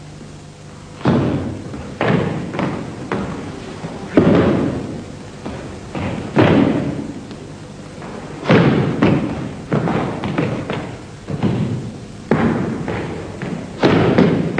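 Bajiquan stamping footwork and strikes on a wooden gym floor: some twenty heavy thuds in uneven groups, starting about a second in, each with a short ringing tail.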